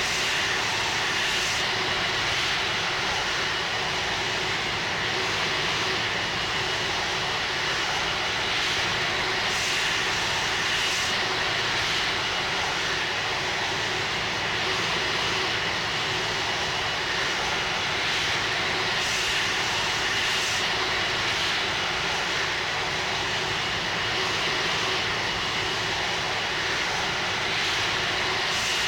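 Airbus A330-300 jet engines running steadily: an even, unchanging noise with a faint steady whine.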